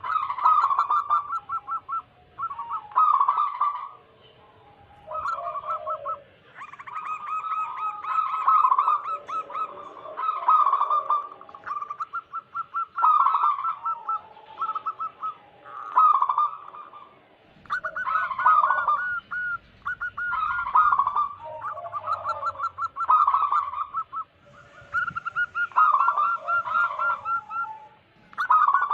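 Zebra doves (perkutut) cooing in repeated phrases of rapid rolling notes, a new phrase every second or two. A higher second voice overlaps now and then. This is the vigorous song of a wild local perkutut.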